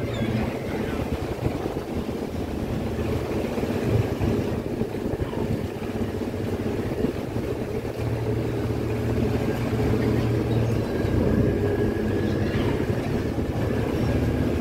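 A fishing boat's diesel engine runs steadily with a low hum as the boat manoeuvres alongside the quay, its propeller churning the water.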